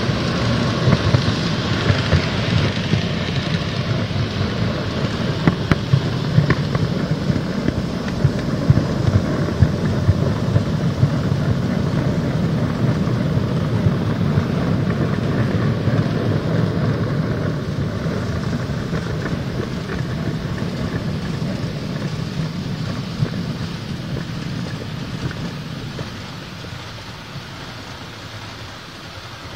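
N-gauge model railway camera car running along the track: a steady whirring rumble of its small motor and wheels on the rails, with occasional sharp clicks of wheels crossing rail joints. It gets quieter over the last several seconds as the car slows to a stop.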